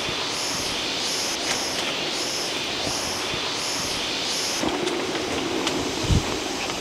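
Steady rushing of a forest stream, with a high pulsing call repeating about twice a second that stops about two-thirds in. A low hum and a single low thud follow near the end.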